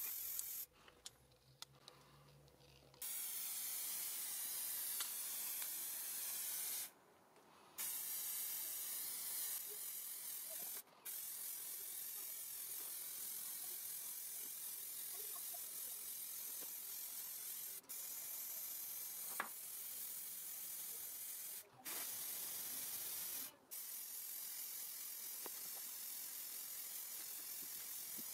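Aerosol spray can of lacquer hissing steadily as a clear coat is sprayed on, stopping abruptly several times between passes.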